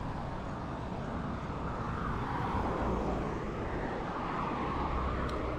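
Steady wind and road noise on the microphone of a road bicycle being ridden, a low rumble with a hiss that wavers up and down.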